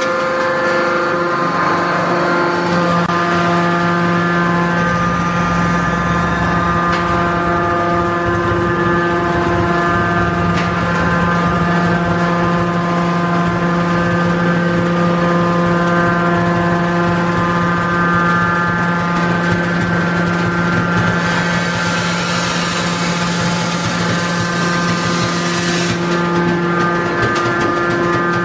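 Hydraulic baling press running, its pump motor giving a steady, even hum. About three-quarters of the way through a hiss comes in for around five seconds and then cuts off.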